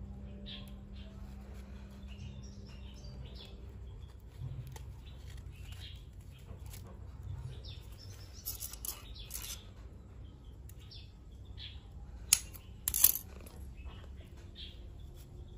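Quiet handling noises of thread being wound and feathers being handled, with faint birds chirping in the background and two sharp clicks close together about three-quarters of the way through.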